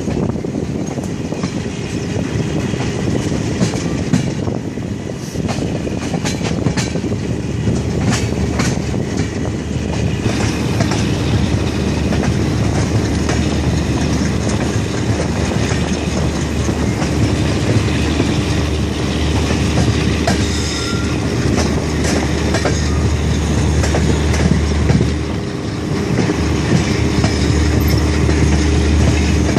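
Rajdhani Express passenger coaches running on the track, heard close from an open coach doorway: a steady low rumble of wheels on rail with clickety-clack over rail joints, clearest in the first third, and a steady wheel squeal on the curve later on.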